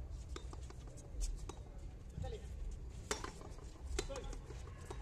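Small bouncy rubber handball being smacked by bare hands and rebounding off the concrete wall and floor during a rally: a string of sharp smacks at an uneven pace, the loudest about three seconds in and again about four seconds in.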